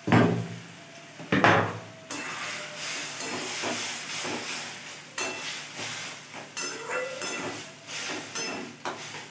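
A metal spatula stirring a thick vegetable curry in a metal kadai: two sharp clanks against the pan near the start, then continuous scraping and knocking strokes over the curry sizzling.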